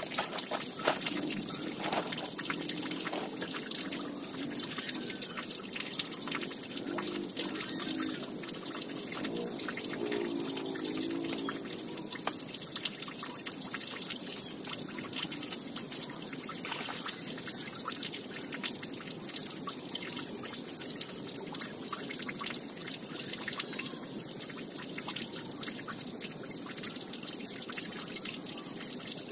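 Water dripping and trickling steadily, a dense patter of small drip ticks.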